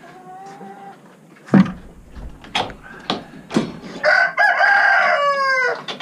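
Rooster crowing in the last two seconds, one long call whose pitch falls away at the end, with chickens clucking faintly. Before it there are a few sharp knocks, the loudest about a second and a half in.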